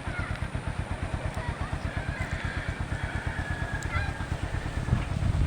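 A small motor running with a steady, rapid low throb, with faint wavering high calls or squeals over it; a louder low rumble builds near the end.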